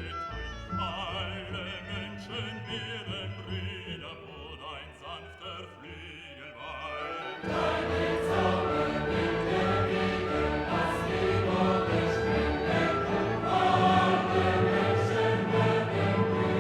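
Background music with choir-like singing. About halfway through it swells suddenly into a fuller, louder passage.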